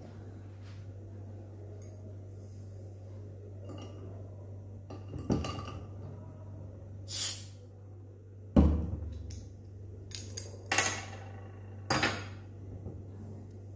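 Crown cap being pried off a glass bottle of homebrewed beer with a metal bottle opener, with a short hiss of escaping gas from the carbonated beer, and sharp metal knocks and clinks as the opener and cap are put down on the table. The loudest knock comes just after the hiss.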